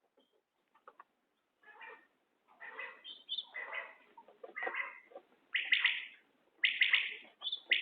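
Common quail calling, a series of short calls that start faint and grow louder, coming about once a second toward the end.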